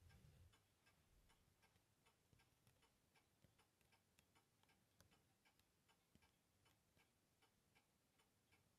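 Near silence: faint room tone with many small, light ticks scattered through it.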